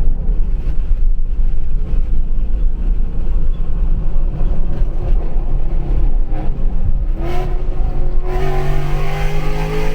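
Ford S650 Mustang GT's 5.0 Coyote V8 running through Kooks long-tube headers and an X-pipe, heard through an open car window while driving. About seven seconds in, the engine note climbs in pitch as the car accelerates, growing louder near the end.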